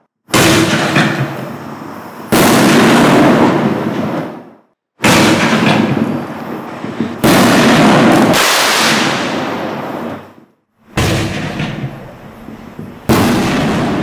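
Three 5-inch canister firework shells, each going off as a sudden bang from the mortar tube followed about two seconds later by a loud boom as the shell bursts overhead. Each boom dies away over a couple of seconds.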